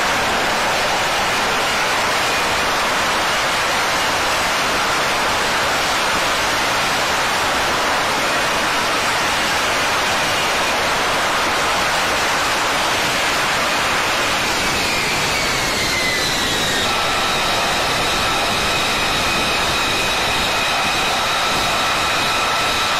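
F-35B's Pratt & Whitney F135 jet engine and lift fan running at high power in a vertical landing, a loud, steady rush of jet noise. About two-thirds of the way in the whine slides down in pitch as the engine throttles back once the jet is on deck, then holds as a steady high whine at idle.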